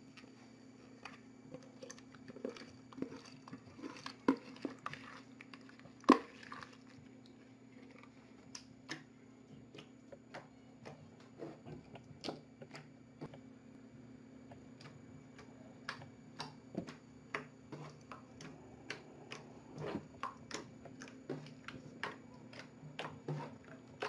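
A large glossy slime being poked, pressed and pulled by fingers, making irregular sticky clicks and small squelching pops, one louder pop about six seconds in. A steady low hum runs underneath.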